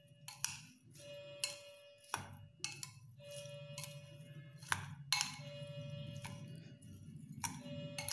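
Spoon clinking and scraping against a ceramic bowl while tossing sliced passion fruit peel with salt, with irregular clinks about once a second.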